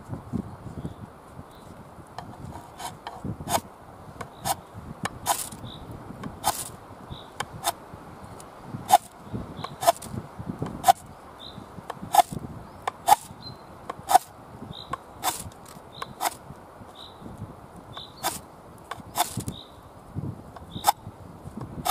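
Ferrocerium rod struck again and again to shower sparks onto a pile of wood shavings: a long, irregular string of sharp, short scraping strikes, about one a second.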